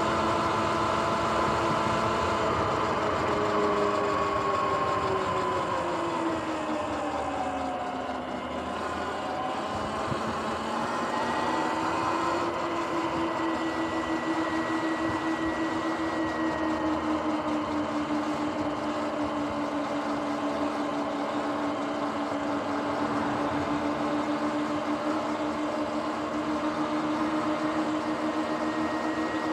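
Sur-Ron X electric dirt bike under way: a whine from its motor, drivetrain and knobby tyres over tyre and wind noise. The whine falls over a few seconds as the bike slows, rises again about a third of the way in as it speeds up, then holds steady at cruising speed.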